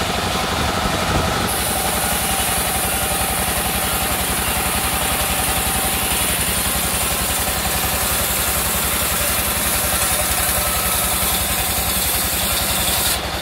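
Band sawmill running with a steady, fast-pulsing motor drone while its blade cuts lengthwise through a rain tree log. A high hiss from the cut begins about a second and a half in and stops just before the end.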